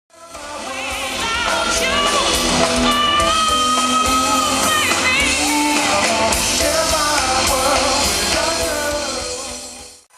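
A song with a singer holding long notes over a steady beat, fading in at the start and fading out near the end.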